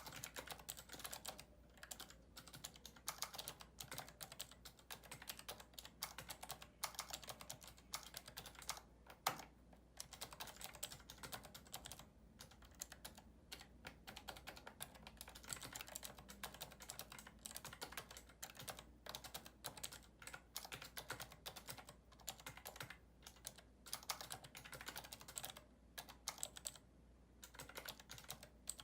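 Typing on the Moonrim liftless ergonomic keyboard: a quick, uneven run of soft key clicks, broken by short pauses, with one louder click about nine seconds in.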